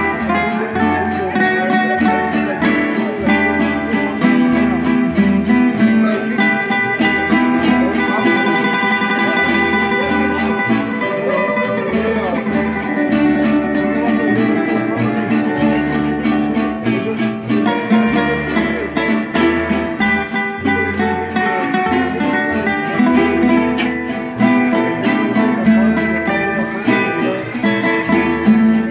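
Mariachi string trio playing: guitar and vihuela strumming chords over the deep plucked bass notes of a guitarrón.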